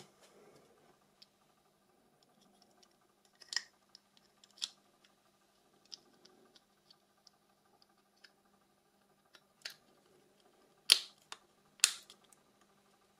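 Sharp plastic-and-metal clicks and taps of Nokia 6300 phone parts being handled and fitted together during reassembly, scattered and irregular, with the two loudest snaps near the end.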